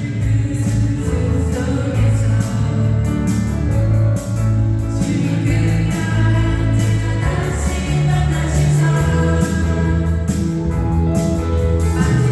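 A Christian worship song: singing voices over a band accompaniment with a steady beat.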